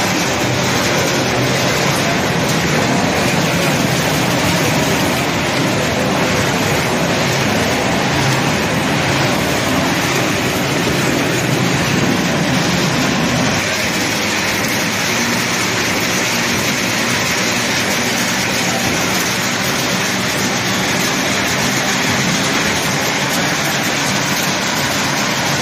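Corrugated-box printer slotter with its automatic sheet feeder running: a steady, loud mechanical noise with no distinct beat, dropping a little in level about halfway through.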